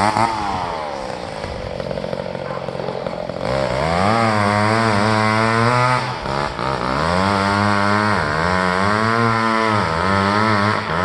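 Two-stroke chainsaw running at low revs, then opened up about a third of the way in and cutting through tough wood. Its pitch wavers and sags under load, with a brief drop in revs about halfway through.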